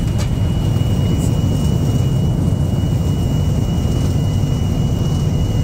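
Jet airliner's landing rollout heard from inside the cockpit: a loud, steady low rumble of the engines and the wheels on the wet runway, with a thin steady high whine.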